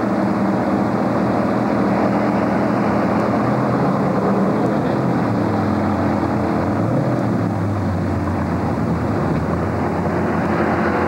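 Stock car V8 engines running, a loud, steady drone.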